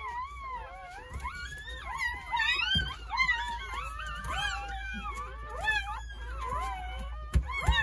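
Several newborn Jindo puppies squealing and whining at once, many thin overlapping cries wavering up and down in pitch. A soft thump near the end.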